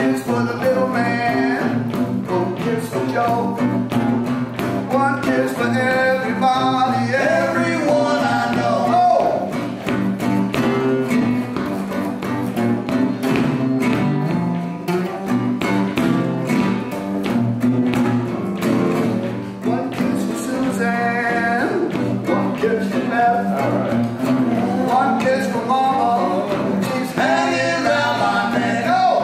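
A nylon-string classical guitar and a steel-string acoustic guitar strummed together while two men sing, with a guitar-led stretch in the middle and both voices back together near the end.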